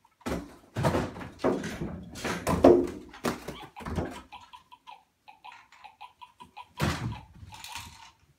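Loud knocks and thumps of objects being handled and bumped, several in quick succession, then a run of quick light clicks for about two seconds, and another thump near the end.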